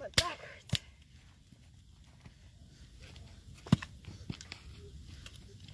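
Hatchet with a half-split stick wedged in its blade struck down against a wooden chopping block, giving a few sharp wooden knocks, the loudest about four seconds in, with light rustling in between. The stick does not split, which the helper puts down to the blade sitting on a knot.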